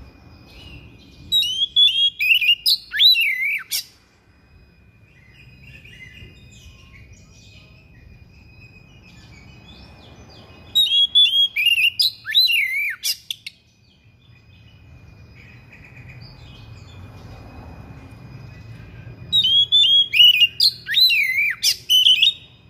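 Oriental magpie-robin singing in three bursts of about two and a half seconds each, several seconds apart, each a fast run of sharp, rising and falling whistled notes.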